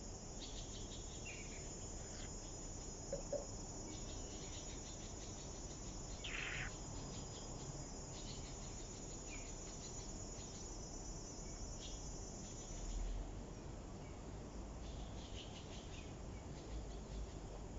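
Insects chirring steadily in a high, rapid buzz that fades out about thirteen seconds in, with a few short chirps over it.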